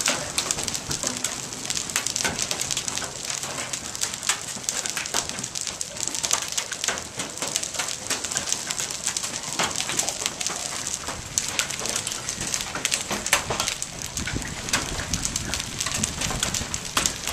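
Hail falling steadily on a street, sidewalk and lawn: a dense patter of sharp clicks from hailstones striking, over a hiss of falling ice and rain.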